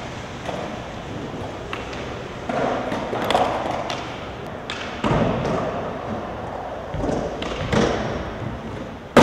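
Skateboarding on a concrete floor: wheels rolling with several thuds and clacks of the board hitting the ground, ending in a sharp, loud slam.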